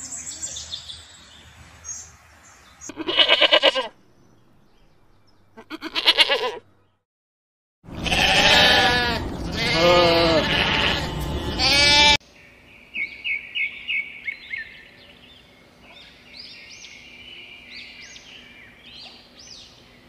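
Sheep bleating: a run of loud, overlapping bleats for about four seconds in the middle, after two shorter calls earlier on. Small birds chirp in the quieter stretches before and after.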